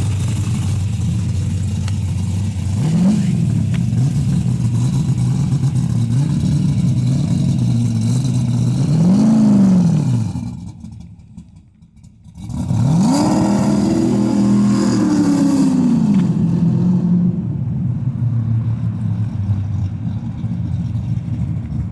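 Race-built 1970 Ford Mustang Boss 302's 302-cubic-inch V8 running, blipped up twice briefly, then after a sudden two-second break revved up, held and let back down, and running on a little quieter toward the end.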